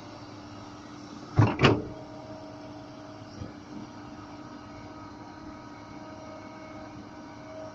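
Excavator's diesel engine running at a steady hum, with two loud knocks in quick succession about a second and a half in.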